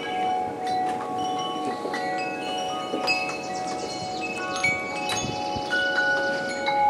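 Wind chimes ringing, many clear notes at different pitches struck at irregular moments and lingering so that they overlap.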